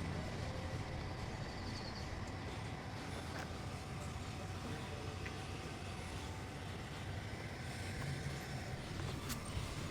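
Steady low rumble of vehicle and road-traffic noise.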